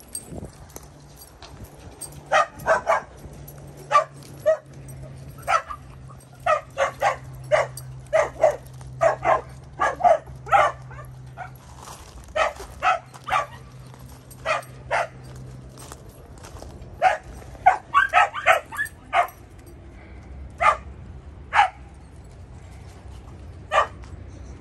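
A dog barking over and over in short, sharp barks, irregular and sometimes in quick pairs or runs, with a pause around the middle and a few single barks near the end.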